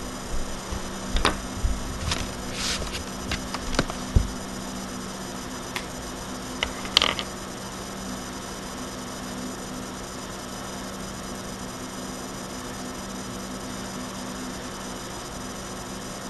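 Steady electrical hum and hiss from a webcam's built-in microphone, with a few short knocks and clicks in the first seven seconds, then only the hum.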